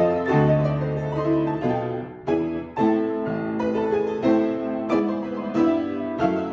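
Acoustic upright piano played four hands as a duet: struck chords and melody notes in a steady rhythm, with a brief break about two seconds in before the playing picks up again.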